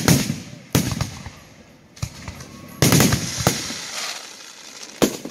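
Aerial firework shells bursting: about seven sharp booms, irregularly spaced, each trailing off in a rolling echo. The loudest come at the start and about three seconds in.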